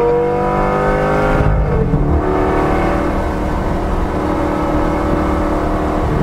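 Lamborghini Gallardo's V10 engine accelerating, heard from inside the cabin: its pitch rises, drops suddenly at an upshift about a second and a half in, then climbs again more slowly.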